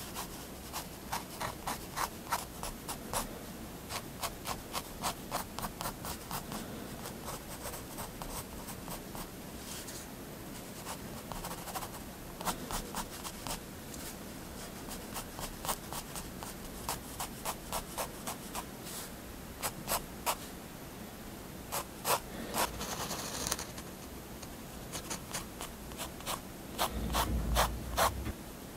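Staedtler triplus 0.3 mm fineliner tip scratching on paper in many quick, short hatching strokes, with a sparser pause partway through and one longer stroke later on. Near the end there is a dull low rub.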